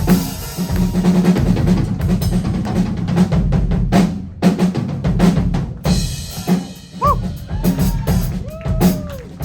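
Live rock drum kit solo: a fast run of snare hits, rimshots and fills over the bass drum, with cymbals ringing.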